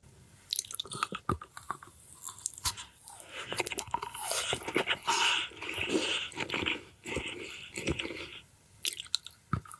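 Someone biting and chewing crunchy food close to the microphone: a run of sharp crunches and chewing, busiest and loudest in the middle of the stretch.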